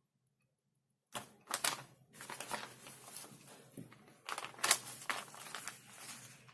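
Close-miked, irregular crackling and clicking from handling a Nando's chicken meal, starting about a second in, with two sharper, louder crackles.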